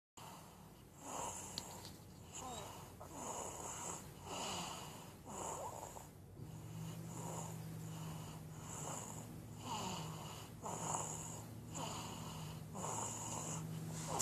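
Snoring: wheezy, rhythmic snores, roughly one a second. A steady low hum joins about six seconds in.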